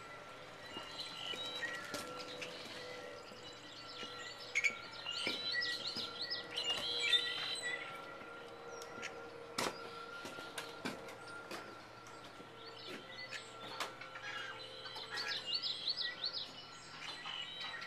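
Small birds chirping and singing in quick warbling runs, busiest about four to eight seconds in and again near the end, with scattered sharp clicks and knocks between.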